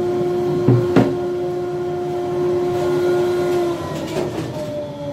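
An electric workshop motor runs with a steady hum, is switched off almost four seconds in and winds down slowly, falling in pitch. Two sharp knocks come about a second in.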